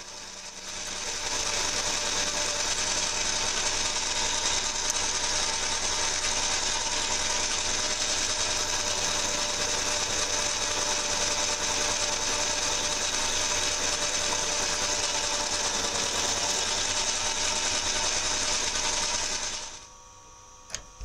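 Metal lathe running while a 7 mm twist drill in the tailstock chuck bores through a cold-rolled steel plate held in a four-jaw chuck. It makes a steady whirring, hissing cutting noise, and the drill is one the machinist judges in need of resharpening. The noise drops away about a second before the end as the lathe is stopped.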